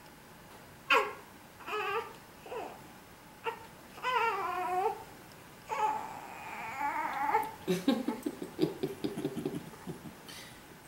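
A newborn baby's short, high-pitched fussing cries, several in the first five seconds. Near the end come short pulsing chuckles of laughter.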